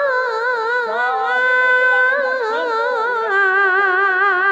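A woman singing solo into a microphone in Javanese Banyumasan style. She holds long notes with a wide, wavering vibrato and steps between pitches, with no instruments heard.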